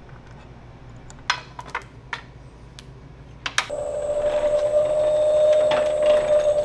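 A few sharp metal clicks as a foil die is set onto the press's honeycomb base. About four seconds in, the motor-driven platen foil-stamping press starts running with a steady whine and a quick rhythmic beat.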